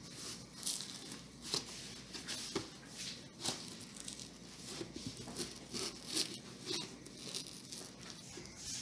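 Cardboard and packing tape being torn and pried apart by hand as a sealed shipping box is forced open: a run of short, irregular rips and scrapes.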